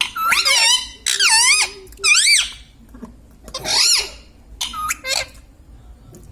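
Pet parrot giving a string of about six shrill, high-pitched calls, each rising and falling in pitch, the last two short.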